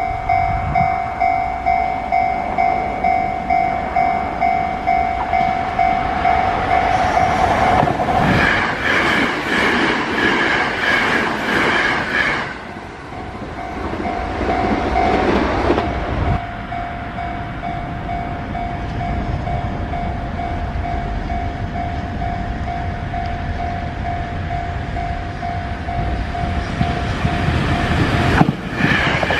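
Japanese level-crossing warning bell ringing about twice a second, with a Sanyo Electric Railway train passing at speed about eight to twelve seconds in. Then the crossing bell rings steadily again as the rumble of another approaching train builds near the end.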